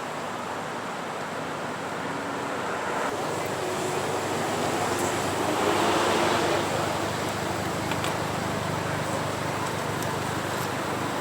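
Street traffic: a car drives past, its engine and tyre noise swelling to a peak about six seconds in and then easing off.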